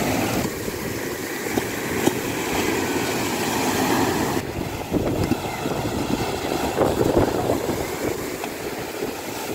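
Small waves breaking and washing up a sandy beach in a steady rushing noise, with wind buffeting the microphone.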